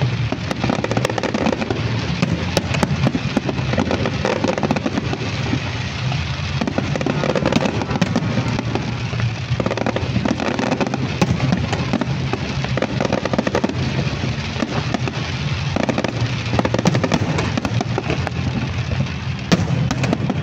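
A fireworks display going off without pause: dense crackling and popping of bursting shells, with show music playing underneath.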